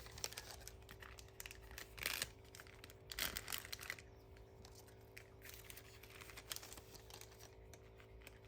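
Faint rustling and light clicking of small objects being handled, with a few louder crinkling rustles about two and three seconds in, over a low steady room hum.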